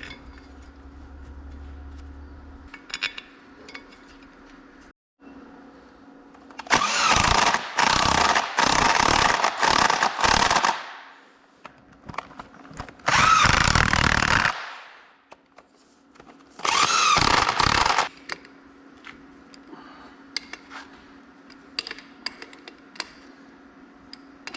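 Power tool driving in the bolts of a tractor axle's final drive, run in bursts: several short runs, then a longer one that winds down, then one last short run. Light clicks of handling parts and bolts between.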